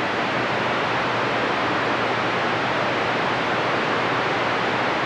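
CB radio receiver on channel 28 giving a steady hiss of band noise between transmissions, with the squelch open.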